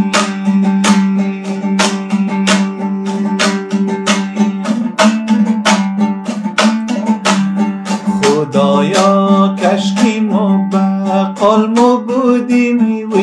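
Background music: an instrumental stretch of a sung song, a plucked-string instrument played in fast, even strums over a steady low drone.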